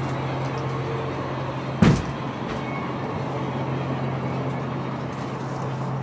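A steady low hum under an even background noise, with one sharp, loud bang a little under two seconds in.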